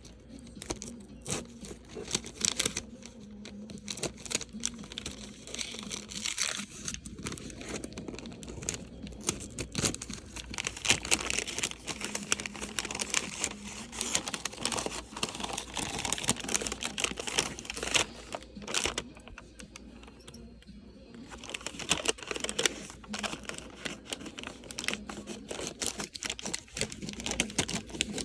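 Packing material being handled and unwrapped by hand, crinkling and tearing in a long run of rustles and small clicks, with a short lull about two-thirds of the way through.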